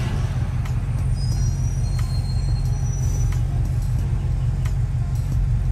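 A car's steady low engine and road drone heard from inside the cabin, with faint regular ticks about every two-thirds of a second.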